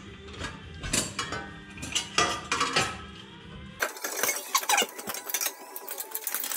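Metal-on-metal clinks and knocks from a steel exhaust downpipe being worked down into place under a truck, knocking against the chassis. A low background rumble stops abruptly about four seconds in, leaving lighter, quicker ticking.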